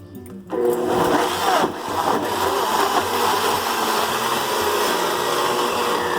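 Electric blender switching on about half a second in and running steadily at full speed, its motor giving a loud whir as it blends leaves and water into juice.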